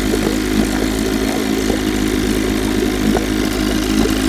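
Old Evinrude 7.5 hp two-stroke outboard motor running steadily in a test barrel, its lower unit churning the water. It is gravity-fed, running without its fuel pump.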